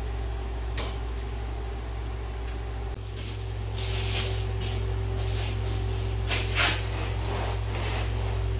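A few light metallic clicks from a hand wrench working a ball-joint nut, over a steady low hum. About three seconds in, a series of louder scraping and rustling noises begins.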